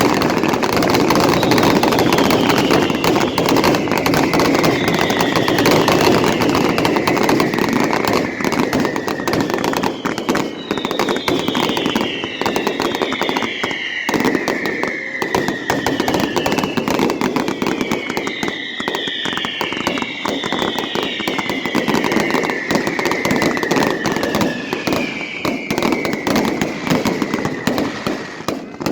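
Fireworks going off: continuous dense crackling with many overlapping whistles that each fall in pitch over a second or two. A steady low rumble runs underneath.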